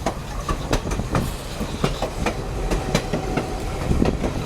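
Passenger train rolling along the track: a steady low rumble with rapid, irregular clacks and knocks from the wheels and car.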